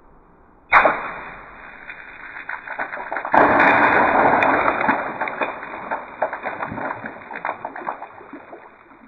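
Water balloon burst sound effect: a sudden pop about a second in, then a second, bigger burst with crackling, splashing noise that slowly dies away.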